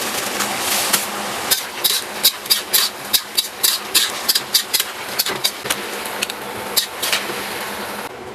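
Stir-frying in a wok: a steady sizzling hiss, with a metal spatula clacking against the wok about two to three times a second through most of the stretch.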